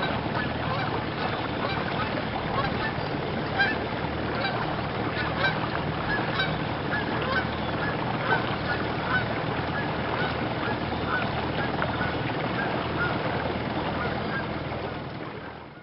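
A flock of geese honking, many short calls overlapping throughout, over a steady low background rumble.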